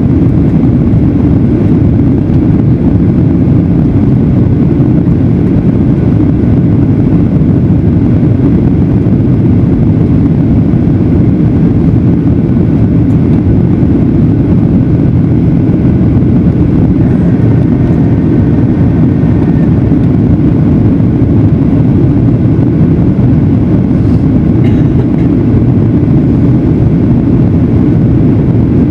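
Steady, loud, low rumble of a Boeing 737-900ER in flight on its landing approach: the CFM56-7B turbofan engines and the airflow around the airframe.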